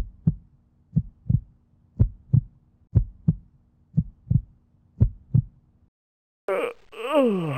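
Deep double thumps in a heartbeat rhythm, six pairs at about one pair a second, like a heartbeat sound effect. Near the end a different sound comes in, a stack of tones sliding down in pitch.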